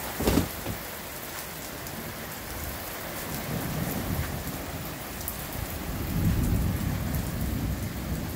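Heavy rain pouring down on the driveway and parked cars, with a low rumble of thunder swelling about four seconds in and again, louder, about six seconds in. A short thump right at the start.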